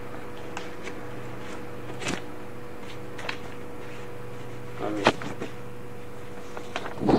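Room tone with a steady low hum, broken by a few short knocks and clicks of objects being handled, the sharpest about five seconds in.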